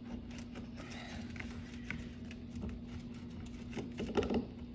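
Small clicks and scrapes of a hand tool prying at a baked coconut, working the flesh loose from the hard shell, with a louder burst near the end. A steady low hum runs underneath.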